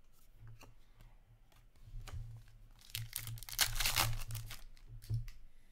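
A foil Upper Deck Artifacts hockey card pack torn open by hand, the wrapper crinkling and tearing loudly for about two seconds starting three seconds in. Light clicks of cards being handled come before it.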